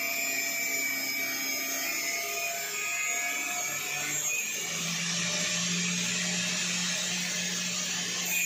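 Automatic cut-off test machine running a 1 mm thin, 4.5-inch cutting wheel through a 16 mm stainless steel rod: a steady high grinding hiss over the machine motor's hum.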